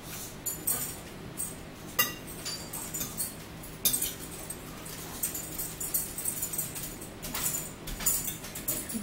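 Metal fork clinking and scraping against a plate: a string of sharp, irregular clinks, a few with a brief ring.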